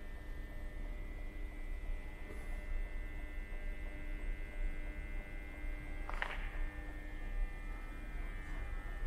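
Steady low rumble and electrical hum of an underground metro station, with a short high squeak about six seconds in.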